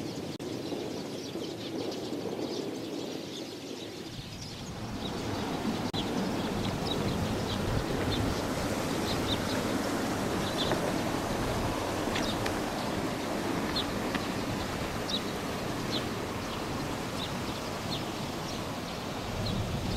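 Small birds chirping in short, scattered calls over a steady outdoor rushing noise, which grows louder about five seconds in.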